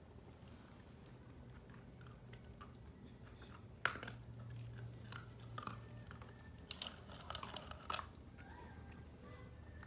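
Small dog crunching and chewing pieces of dry kibble: scattered sharp crunches, the loudest about four seconds in and a quick run of them around seven to eight seconds, over a faint steady low hum.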